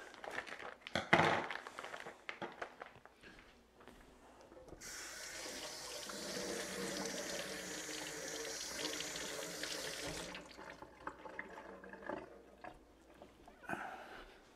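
Kitchen faucet running into a stainless sink for about five seconds, hands being washed under it, then shut off abruptly. A short loud sound comes about a second in.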